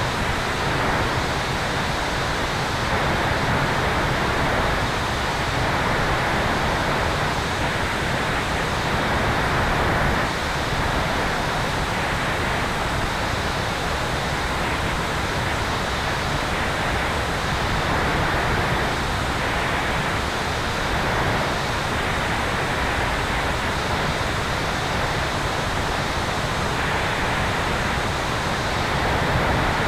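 Steady rush of airflow over a tail-mounted camera on an electric airplane in flight, an even wind noise with no engine tone.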